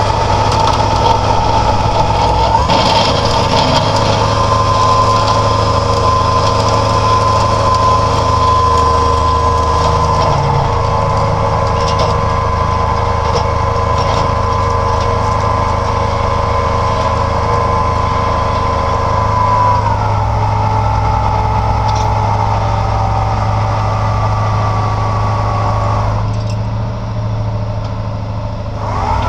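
Tow truck's engine running steadily with a high whine over a low hum. The whine rises in pitch about two and a half seconds in and steps down about twenty seconds in.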